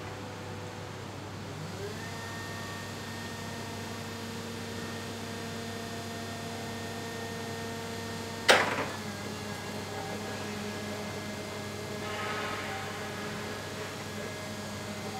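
Electric articulated forklift truck's lift motor and hydraulics whining at a steady pitch as the mast raises a pallet, over a constant electrical hum; the whine comes in with a short rising glide about two seconds in. A single sharp clunk about halfway through is the loudest sound.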